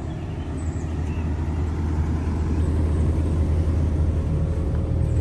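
Case CX210B crawler excavator's diesel engine idling with a steady low hum, growing gradually louder.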